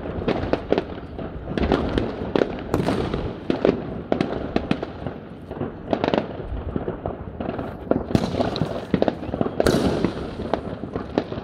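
Aerial fireworks going off in a rapid, irregular string of bangs and pops as shells burst overhead, with hissing crackle about three, eight and ten seconds in.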